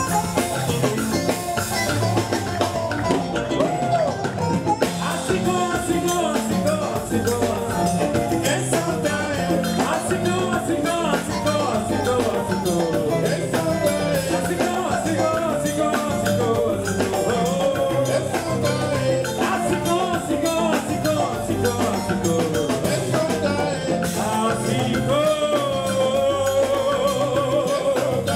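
Live salsa band playing, with congas, electric guitar and bass guitar under a singing voice; a long wavering held note comes near the end.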